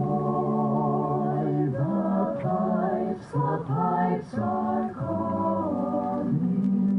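Mixed youth choir singing unaccompanied, in slow sustained chords that change about once a second.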